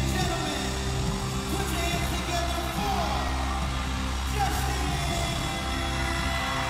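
Loud arena concert music over the PA, with sustained deep bass notes, and fans screaming and yelling over it in short, falling shrieks.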